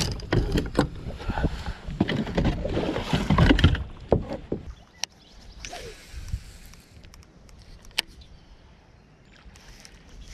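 Rustling and knocking of a person moving about a bass boat deck, close to the microphone, for about four seconds, then quieter with a few sharp clicks.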